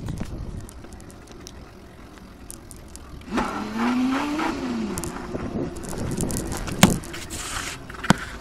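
Mini moto's small two-stroke engine revving up and back down a little over three seconds in, then running on for a few seconds. Sharp knocks and clicks of the phone being handled.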